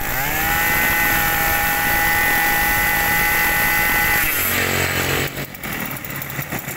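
Maruyama 26cc brush cutter engine revved up to full throttle, held at a steady high pitch for about four seconds, then throttled back so it falls to idle.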